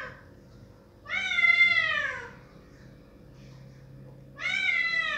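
Domestic cat meowing loudly at a closed door to be let through: two long meows, each rising then falling in pitch, about three seconds apart, with the tail of an earlier meow at the very start.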